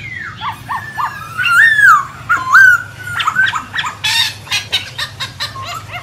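Black-throated laughingthrush singing loudly: rich whistled phrases that glide up and down, then a quick run of short, sharp notes.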